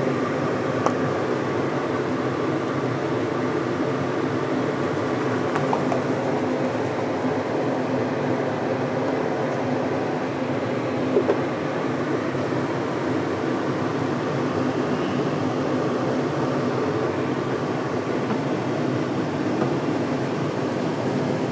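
Steady whirring hum of a fan running, with a faint click about a second in and another short knock about eleven seconds in.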